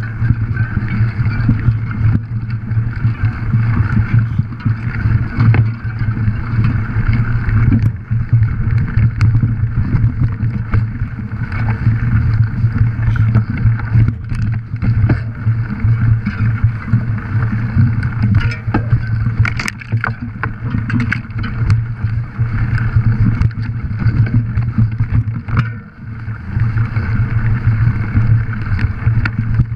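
A bike ridden fast over rough forest ground: a steady low drone with rattling and sharp knocks from the bumps, thickest about two-thirds of the way through.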